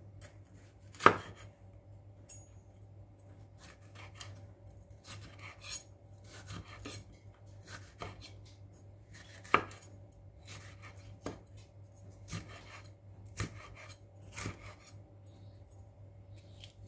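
Kitchen knife slicing a green bell pepper on a bamboo cutting board: irregular knocks of the blade on the board, with two sharper ones about a second in and about halfway through.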